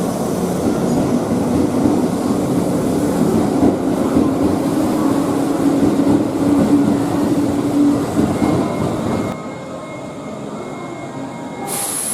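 Electric train running on rails: a steady rumble of wheels with a low motor tone that fades, and the overall sound drops about nine seconds in.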